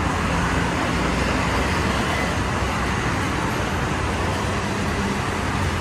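Steady multi-lane road traffic: cars, taxis and buses passing, a continuous rumble of engines and tyres. It cuts off suddenly at the very end.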